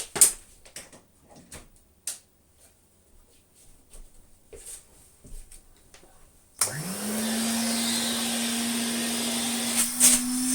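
A few faint clicks and knocks of handling, then about two-thirds of the way in a 1981 Hoover Constellation 867A vacuum cleaner switches on. Its motor spins up within half a second to a steady hum over a loud rush of air, with a couple of knocks near the end.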